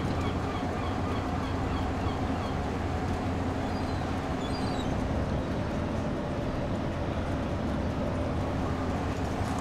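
Steady low machinery hum over even background noise, with a run of faint, short high chirps in the first couple of seconds and a few more about halfway through.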